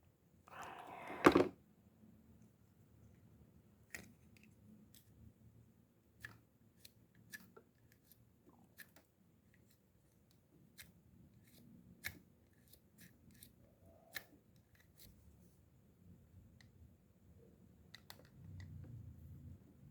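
Hand work on a spinning fishing reel during servicing: a short rasping cut or scrape about a second in, ending in a sharp click, then scattered light clicks and taps of small parts being handled.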